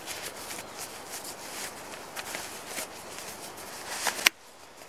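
Fabric rustling and small clicks as a Helinox Chair Zero is packed into its stuff sack and the drawstring is pulled closed, with one sharp click about four seconds in, after which the sound suddenly goes quieter.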